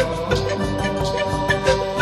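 Background music with a steady, quick beat and sustained melodic notes.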